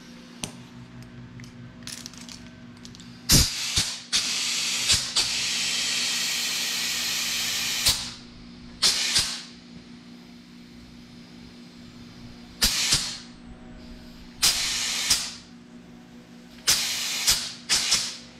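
Compressed air hissing from a compressor's tyre inflator into a fat bike inner tube, in bursts: one long blast of about four seconds among several short ones. The tube is being filled to only about 5 psi so that a slow leak can be found.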